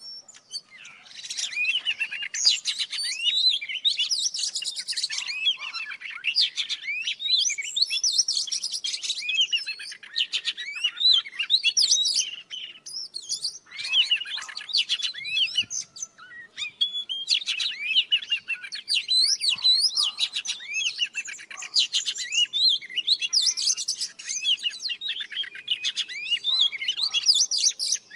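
Oriental magpie-robins, a female and a young bird, singing: a rapid, continuous run of varied whistles and chirps, with short breaks about halfway through.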